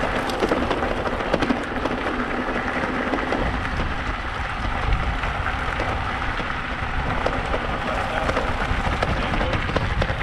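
Bicycle tyres rolling over loose gravel and dirt: a steady crackling rush made of many small grit clicks, over a low rumble.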